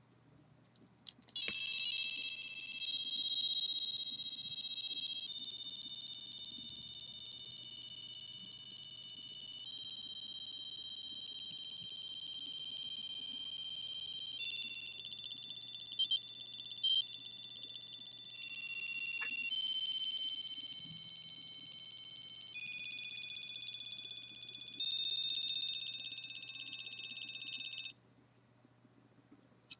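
Electronic tones from a micro:bit: high-pitched, buzzy sustained notes that step to a new pitch every few seconds. They start with a click about a second and a half in and cut off suddenly near the end.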